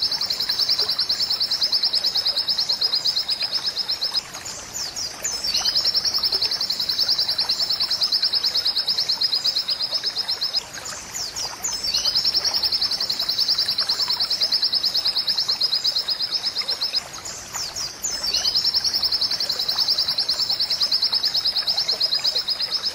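Oriental white-eye (pleci) singing: four long, very fast trills on one high note, each lasting about five seconds with short pauses between, and each opening with a few higher notes.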